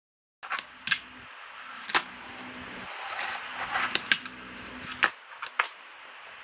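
A fingerboard's wheels rolling on a wooden desk, broken by several sharp clacks of the board popping and landing, the loudest about one and two seconds in.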